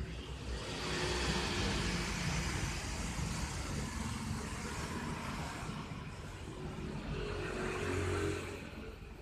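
A motor vehicle going past: a steady rushing noise with a low rumble that swells about a second in and fades near the end.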